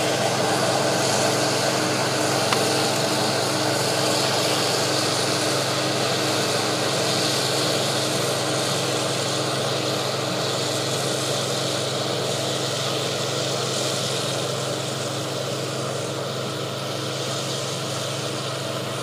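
Farm machinery engine running steadily during corn harvest: a constant drone with a steady low hum that eases off slightly toward the end.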